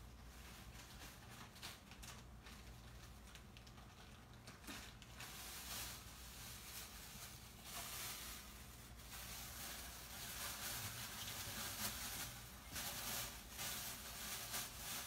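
Tamarind soup simmering in a covered hammered-aluminium pot: faint bubbling and hissing with small irregular ticks, louder from about five seconds in, over a low steady hum.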